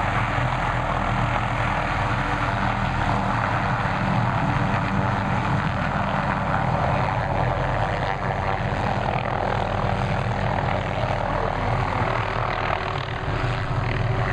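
Helicopter engine and rotor running steadily at a loud, even level.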